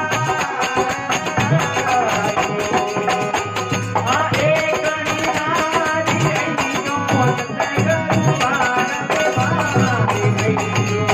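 Live Marwari bhajan accompaniment: a harmonium playing the melody over a steady dholak beat, with small brass hand cymbals (manjira) keeping time.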